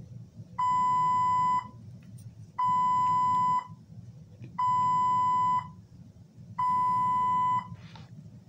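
Alarm on hospital medical equipment beeping: one steady, single-pitched beep about a second long, repeating every two seconds, four times.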